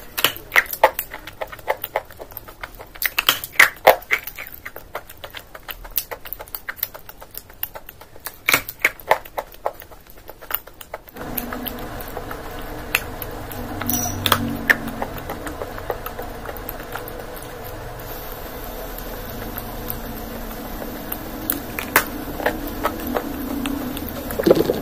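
Close-miked eating: crunchy bites and chewing of food held in a crinkling foil wrapper, making many sharp clicks and crackles. About halfway through the clicks thin out and a steady low hum rises underneath.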